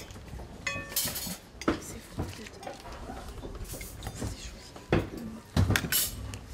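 Dishes, glasses and cutlery clinking and clattering as they are washed and dried by hand: scattered sharp knocks, one short ringing clink near the start, and the loudest clatter about five to six seconds in.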